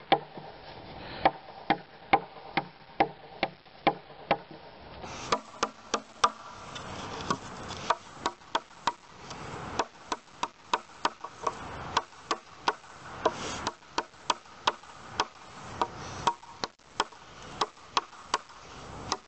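A Kizlyar Delta knife with an AUS-8 steel blade chopping into a pine board: sharp, evenly spaced chops, about two to three a second.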